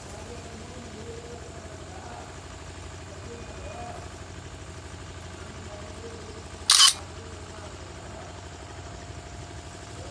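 A phone camera's shutter sound clicks once, sharply and loudly, about two-thirds of the way through, over a steady engine hum from a passing motorbike.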